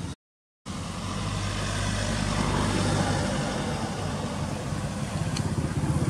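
A motor vehicle engine running steadily with a low hum, after a half-second cut to silence just after the start.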